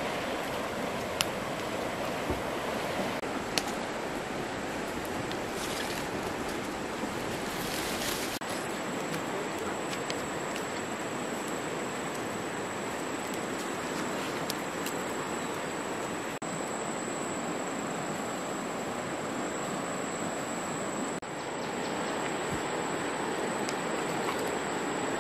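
Steady rushing of a flowing stream, with a few sharp crackles from a wood fire in the first several seconds.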